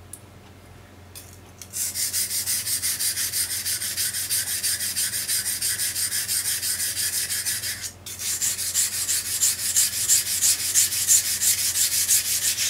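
A small fruit knife being sharpened on a whetstone: the blade scraping back and forth in quick, even strokes, about four a second. The strokes start a couple of seconds in and pause briefly about eight seconds in before carrying on.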